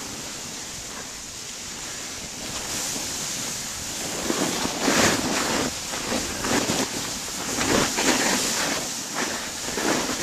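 Wind buffeting the microphone in uneven gusts, a rushing noise that swells and falls several times.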